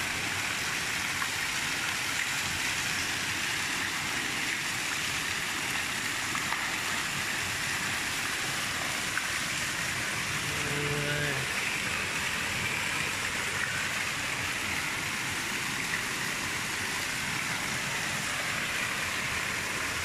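Pool cascade-massage jet pouring from an overhead spout and splashing onto the water: a steady rushing splash that holds even throughout.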